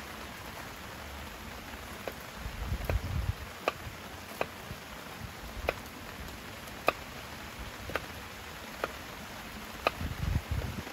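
Rain falling steadily, with a wood fire crackling in sharp, separate pops about once a second. Brief low rumbles come about three seconds in and again near the end.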